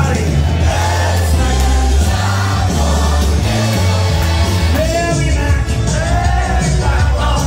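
A singer's voice over a loud backing track with a heavy bass line.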